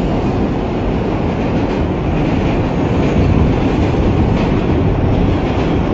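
Subway train running, heard from inside the car: a steady, deep rumble of the wheels on the track.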